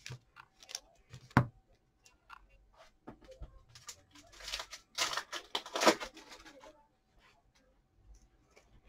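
Football trading cards being handled: scattered taps and clicks with one sharp click, then a couple of seconds of scratchy rustling and sliding a few seconds in.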